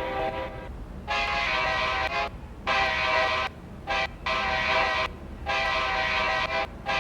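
Amtrak locomotive horn sounding a string of about five blasts, each roughly a second long with short gaps between them.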